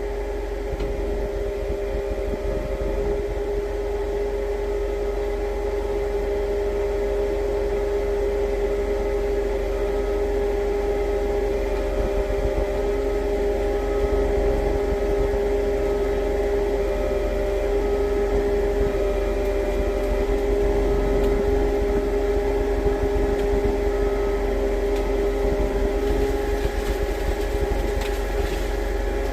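Compact track loader's diesel engine running steadily at high revs under load while its grapple works a stubborn pine free. A faint, evenly repeated beeping sounds for about ten seconds in the middle.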